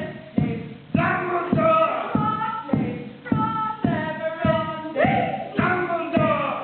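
Voices singing a tune together over a steady beat of thumps, a little under two a second.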